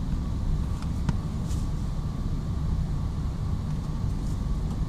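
Steady low rumble of workshop background noise, with a few faint clicks about a second in as the car's rear seat back is handled and folded down.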